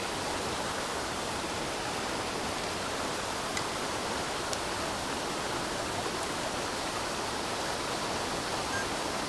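Steady rush of water pouring through a concrete spillway outlet: an even, unbroken hiss, with a couple of faint ticks around the middle.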